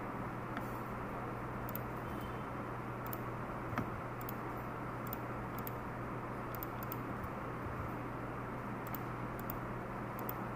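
Steady background hiss with a low hum, with faint scattered clicks.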